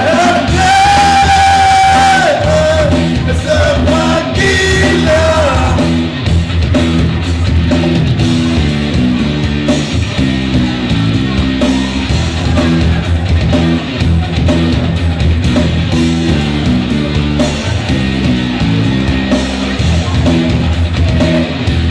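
Rock song: a singer holds and bends a high, strained note for the first few seconds, then the vocal drops out and the band plays on with a repeating electric guitar and bass riff over drums.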